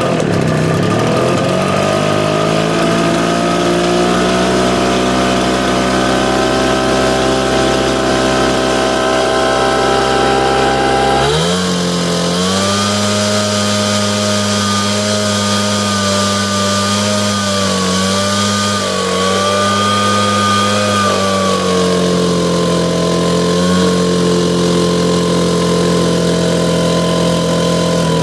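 Echo PB770H backpack blower's two-stroke engine catching on a single pull while hot, with no prime and no choke, and running: the hot-restart fault does not show up. It picks up speed over the first couple of seconds, runs steadily, jumps to a higher speed about eleven seconds in, wavers, and drops back somewhat about ten seconds later.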